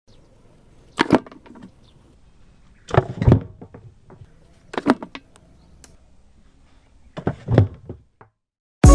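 Four short bursts of knocking and clattering, about two seconds apart, with music starting right at the end.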